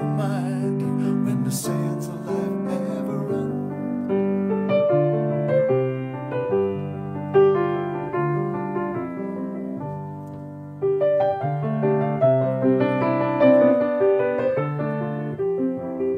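Grand piano played solo: a slow, gentle passage of chords under a melody. It thins out and quietens just before ten seconds in, then comes back fuller.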